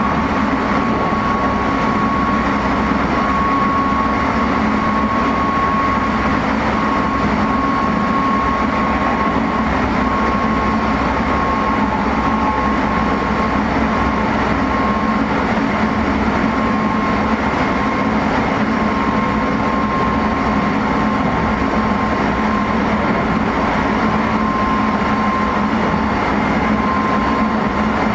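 Cabin running noise of a Meitetsu 3500 series electric motor car at a steady speed: constant wheel-and-rail rumble with a steady high whine that holds one pitch.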